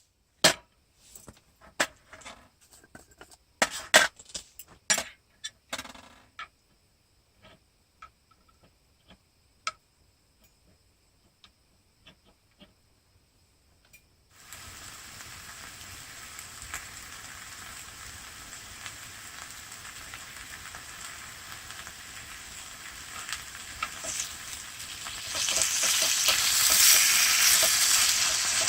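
Clinks and knocks of cookware and utensils, then from about halfway a steady sizzle of food frying in a pan, growing louder near the end.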